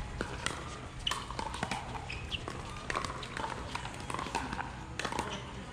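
Pickleball paddles striking a hard plastic ball in a rally: sharp pocks at irregular intervals, some nearer and some farther off from play on neighbouring courts.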